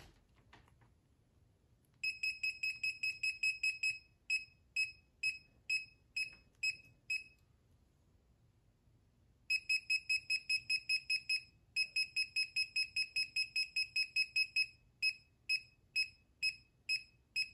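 Kaiweets KM201 multimeter's buzzer beeping in non-contact voltage mode as it is held against a live mains cord. Short, high beeps come in quick runs of about six a second, slow to two or three a second, stop for about two seconds in the middle, then resume. The beep rate follows how strongly the meter detects the live conductor.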